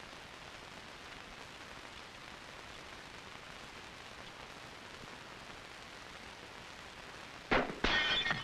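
Steady hiss of an old film soundtrack. About seven and a half seconds in comes a sudden sharp crack and a half-second noisy blast: an M14 rifle being fired.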